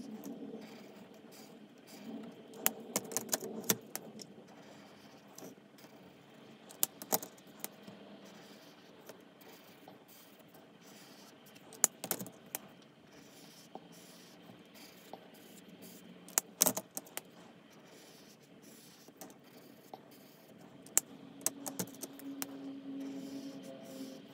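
Plastic art-marker caps clicking off and on, and markers being picked up and set down, in small clusters of sharp clicks every few seconds while stripes are drawn on paper.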